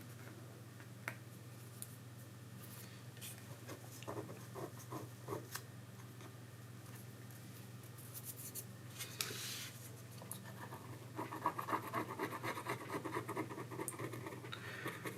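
Scraping and rubbing at leftover battery adhesive on a phone's frame: scattered light scratches and ticks, turning into quick, steady scratching for the last few seconds.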